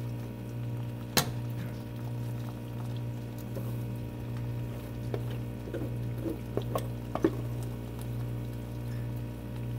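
Glutinous rice bubbling and crackling in hot coconut oil in a wok, over a steady low hum. A sharp pop comes about a second in, and a scatter of small pops and crackles follows from about five seconds on.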